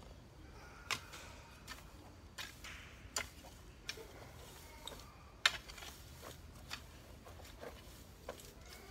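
Garden hoe chopping into weedy soil: a string of sharp, irregular strikes about once or twice a second, the loudest about halfway through.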